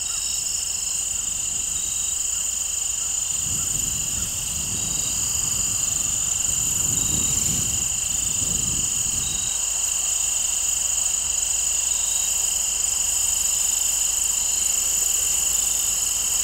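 A steady chorus of insects trilling in several high-pitched bands. A low rushing noise joins it from about four to nine and a half seconds in.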